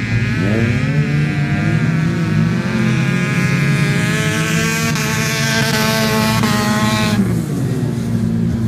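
Engines of several 1600-class autocross cars running hard at high revs, one rising in pitch early on as it accelerates. About seven seconds in, the loudest engine note drops off abruptly.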